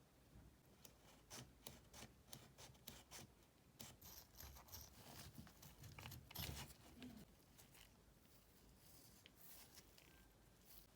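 Faint handling noise: scattered light clicks and rustles, busiest through the middle, with one louder knock about six seconds in, dying away near the end.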